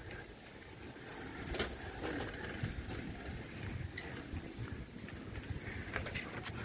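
Steady low rumble and jostling from riding a bicycle along a rough path, with a few sharp clicks and knocks from the bike.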